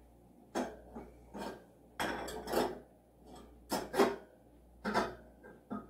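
Tableware clinking and knocking as pieces are handled and set down, with about eight separate sharp clinks, a cluster of them around two seconds in and more near four and five seconds.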